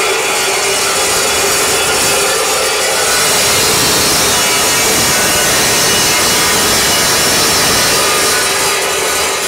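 Metal-cutting chop saw cutting through square steel tubing: a steady, loud cut with a constant motor tone under the hiss of the blade in the steel.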